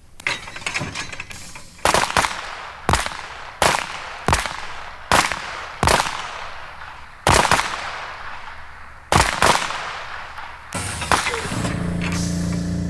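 Pistols firing a rapid-fire string on a military firing line, about a dozen sharp shots at uneven spacing, each with a short echo, some coming in quick pairs. A steady low hum comes in near the end. The recording is from an old vinyl record.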